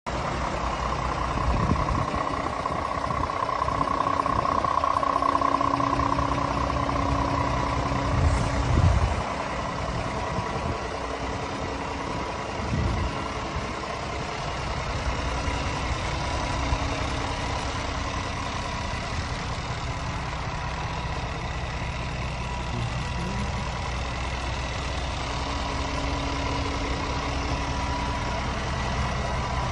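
Scania R450 tractor unit's 13-litre inline-six diesel idling steadily, with a couple of brief low bumps around eight to nine seconds in.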